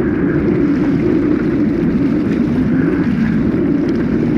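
Steady rush of water streaming past a small sailboat under sail, with wind buffeting the microphone.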